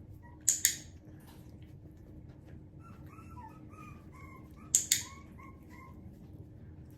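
Havanese puppy whining in a run of short, high-pitched notes. A training clicker clicks twice, each a quick double click, about half a second in and again near the five-second mark; these clicks are the loudest sounds.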